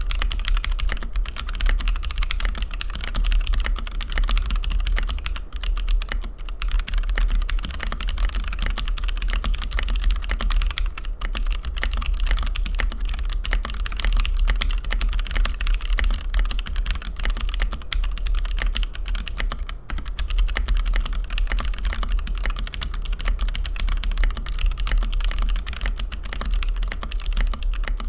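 Continuous, rapid typing on a TKC Portico 65% gasket-mount mechanical keyboard with stock (unlubed) C³Equalz x TKC Kiwi tactile switches and PBT keycaps.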